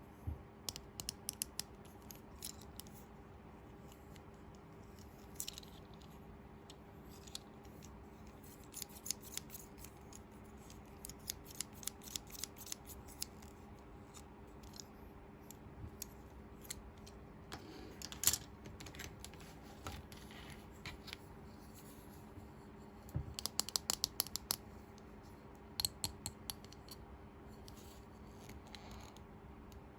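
Small plastic toy pieces and packaging handled during an unboxing: irregular sharp clicks, taps and light scratches, some in quick runs, over a faint steady hum.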